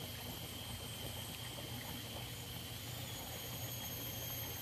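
Faint steady outdoor background with a thin high whine held throughout and a second, higher whine joining about three seconds in, over a low steady hum; no distinct splashes or knocks.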